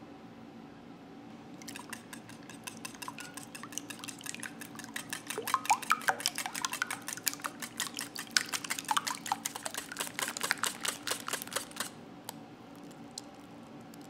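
Wire whisk beating raw eggs and pandan extract in a glass bowl: fast, irregular clicking of the wires against the glass with wet slapping of the liquid. It starts about a second and a half in and stops about two seconds before the end.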